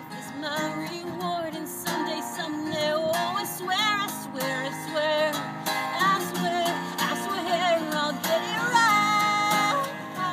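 A woman singing solo while strumming an acoustic guitar, her voice wavering on some notes and holding one long note near the end.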